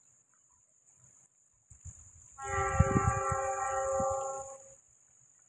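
Train horn sounding once: a chord of several steady notes held for about two seconds, starting about two and a half seconds in.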